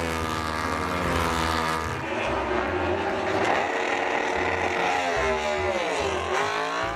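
Racing motorcycle engine revving: the pitch climbs over the first two seconds and holds high at full rev, then drops and climbs again near the end.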